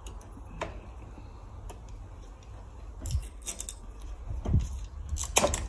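Secateurs cutting through dry bamboo canes: scattered sharp clicks and cracks, a few single ones at first and then closer together in the second half.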